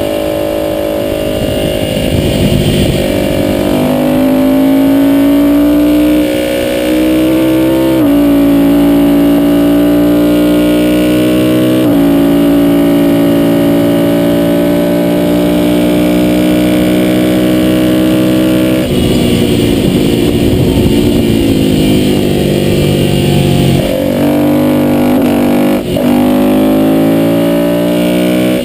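Ducati V-twin motorcycle engine running hard around a track lap. Its pitch rises and steps several times through the gears, wavers about two-thirds in, and a short sharp click comes near the end, over a steady rush of wind noise.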